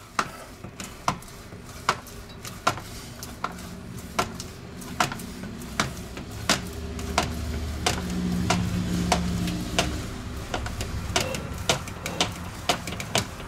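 Spätzle grater in use: its plastic hopper is slid back and forth along the steel grater, giving a sharp click at each end of the stroke. The clicks come about once every second at first and quicken near the end. A low steady hum rises underneath in the middle.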